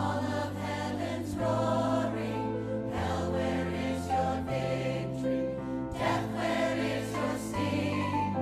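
Mixed church choir singing a worship song with orchestra and band accompaniment; the bass holds long notes that change about every one and a half seconds.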